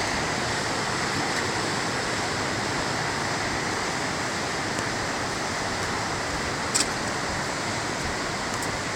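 Steady rushing of fast white-water rapids in a mountain creek below a waterfall. A single brief click cuts in about seven seconds in.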